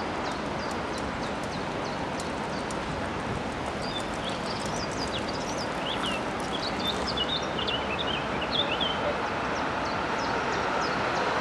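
Steady street traffic noise with birds chirping repeatedly through the middle, while a tram on street tracks slowly gets louder as it approaches near the end.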